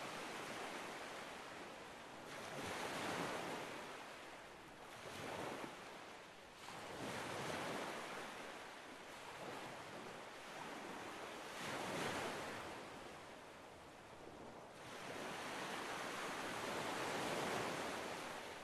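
Small waves of a calm sea washing in on the shore, each one swelling and falling away every two to three seconds, with a longer wash near the end.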